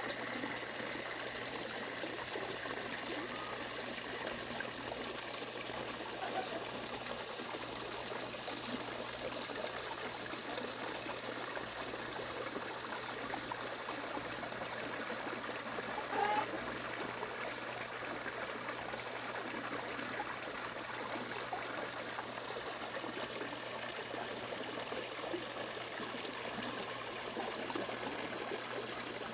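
Steady trickling of running water. There is one brief higher-pitched sound about sixteen seconds in.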